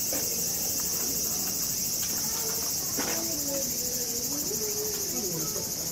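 Steady, high-pitched chorus of summer insects, with faint distant voices beneath it.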